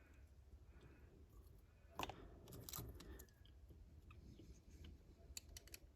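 Faint handling noise of small plastic model parts and hobby tools on a workbench: a light clatter about two seconds in, then a few small clicks near the end.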